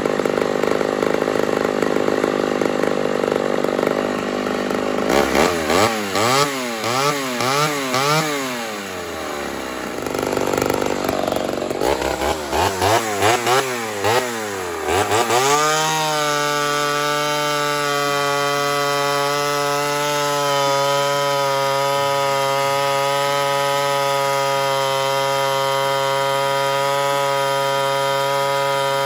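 Ported Homelite Super XL Auto chainsaw, fitted with a larger carburetor from a Super XL 925, running under test. In the first half it is revved up and down in quick repeated blips. From about halfway through it holds a steady high speed.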